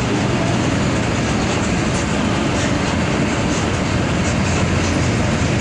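Mercedes-Benz OF-1722M bus running at a steady pace: a continuous engine and road rumble with a few light rattles.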